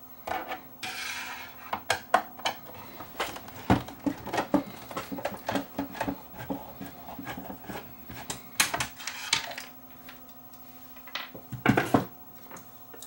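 Irregular clicks, knocks and a scrape of hard metal and plastic parts being handled as a CRT monitor's chassis is worked loose in its cabinet.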